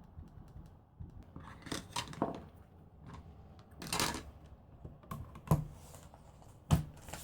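Stamping supplies handled on a craft table: scattered small clicks and clatter of hard plastic as ink pads and blending tools are picked up and set down, with a few soft brushing sounds and two sharper knocks in the second half.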